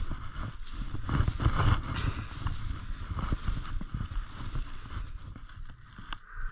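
Wind buffeting the microphone, with the crunch of snowshoe steps in deep snow. Gets quieter near the end.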